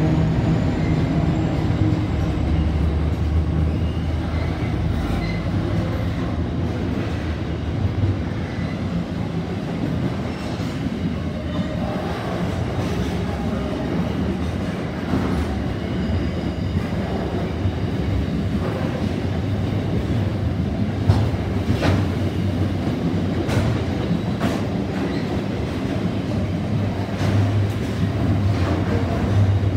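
Container freight train's wagons rolling past at close range: a steady rumble of steel wheels on rail, with irregular clacks as the wheels cross rail joints. In the first few seconds the hum of the locomotive's engine fades as it pulls away.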